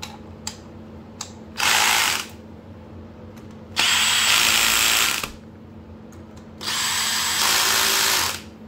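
DeWalt Atomic cordless driver running lower-plenum (intake manifold) bolts down into a VQ37VHR engine, in three short runs, each longer than the last. There are a few light clicks of the socket on the bolts before the first run.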